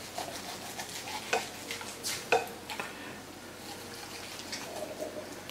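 Chef's knife slicing through a roast chicken's crispy skin and breast meat, a crackling scrape with a few sharp clicks; the loudest come about one and two seconds in.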